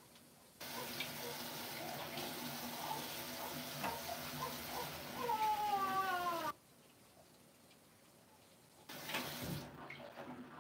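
A cat meowing, with one long falling meow about five to six seconds in and a shorter call near the end, over a steady rushing hiss that cuts off suddenly.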